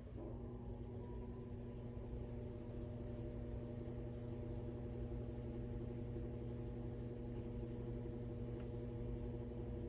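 Washing machine running: a steady low rumble with a motor hum that starts just after the opening and stops near the end, as the drum turns.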